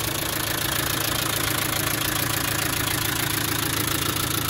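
Land Rover 300Tdi 2.5-litre four-cylinder turbodiesel engine idling steadily, warm, and running as it should.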